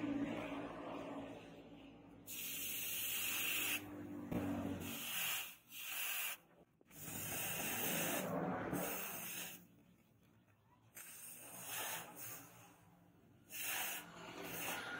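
Hot steel machete blade being quenched in a trough of water, hissing and sizzling as it is dipped, in repeated bursts with short pauses between them.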